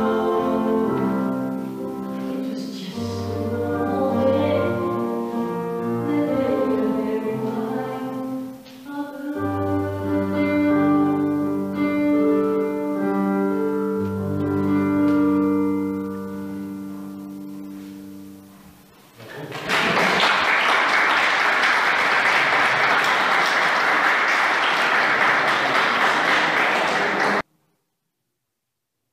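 A woman singing solo with keyboard accompaniment, the song's last notes fading out about two-thirds of the way through. Then an audience applauds steadily for several seconds until the sound cuts off abruptly.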